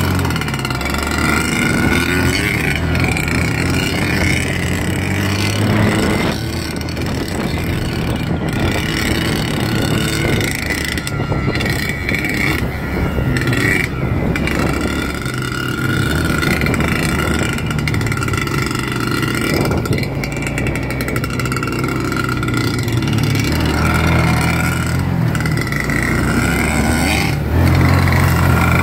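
Off-road engines running at speed on a dirt trail: the engine of the vehicle carrying the camera, close and loud, with a dirt bike ahead. The engine note swells and eases with the throttle several times.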